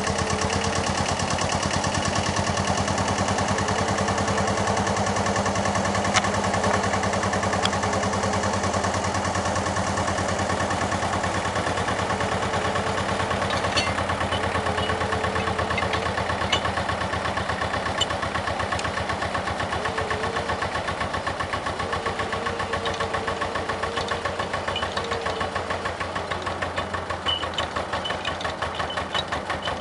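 The IHC Farmall DLD2 tractor's two-cylinder diesel engine idling steadily with an even, pulsing beat. A few light metallic clinks come from the tipping cart's tailgate and crank being handled.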